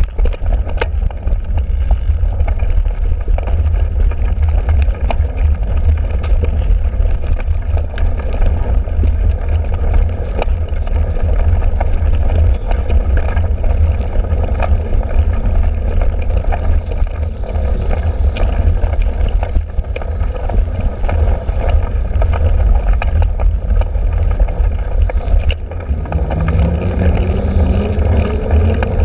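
Wind buffeting a handlebar-mounted camera's microphone on a cyclocross bike ridden over wet grass, with a steady low rumble and frequent small clicks and rattles from the bike over rough ground. A faint rising whine comes in near the end.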